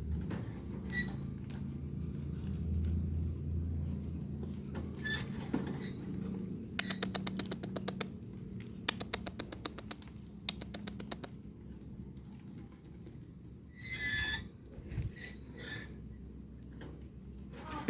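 Eurasian tree sparrows chirping in short scattered calls, with two runs of rapid clicking about a third of the way in and in the middle, and a brief chattering burst near the end.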